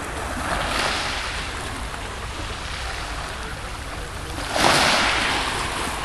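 Small sea waves breaking and washing onto a pebble shore: a mild surge about a second in, then a louder one about four and a half seconds in that slowly dies away, over a steady low rumble.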